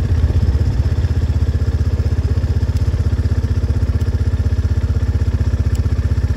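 Off-road vehicle's engine running steadily at low speed, a deep, even, rapid pulse with no change in pitch.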